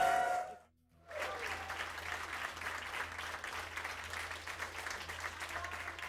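Audience applauding steadily, coming in about a second in after a sudden brief dropout to silence, with a low steady hum underneath.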